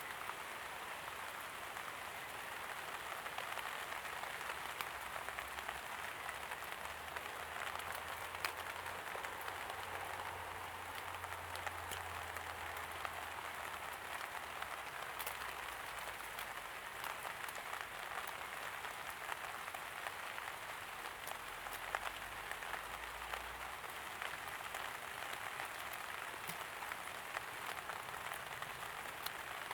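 Steady light rain: an even hiss of rainfall with many individual drops ticking close by, and a faint low rumble through the middle.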